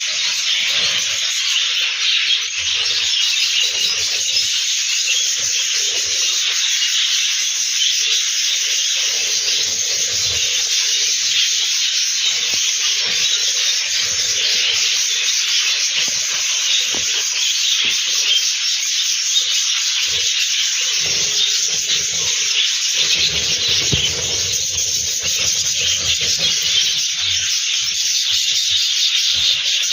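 Continuous chatter of many budgerigars in a colony, a dense steady mass of high chirps and twitters.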